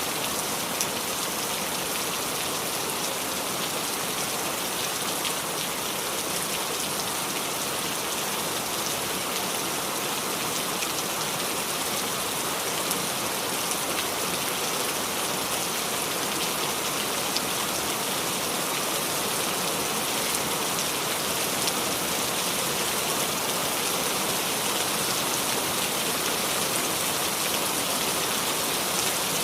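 Steady rain falling on the leaves of a small tree: an even hiss, strongest in the high range, with many fine drop ticks scattered through it.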